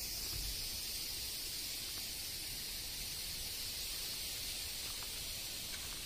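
Steady outdoor background hiss, high and even, over a low fluctuating rumble.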